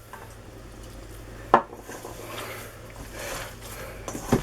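Christmas pudding mixture being mixed in a bowl: soft scraping and rubbing, with a sharp knock against the bowl about a second and a half in and another near the end.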